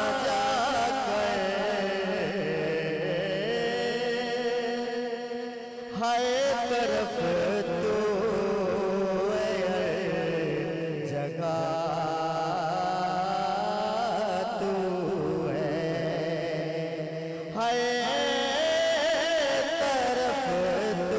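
A man singing a naat into a microphone, drawing out long, wavering held notes in slow melismatic phrases. A new phrase starts louder about six seconds in and again near the end.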